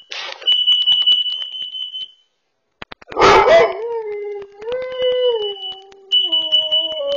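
A bullmastiff barks, then lets out a long howl whose pitch wavers and drops. Behind it a carbon monoxide alarm sounds a high, steady tone on and off; the dog is reacting to the alarm.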